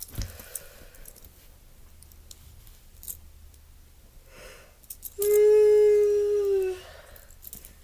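A person's long, loud, drawn-out yawn, held on one pitch for about a second and a half and sagging at the end. It starts about five seconds in, after faint rustling.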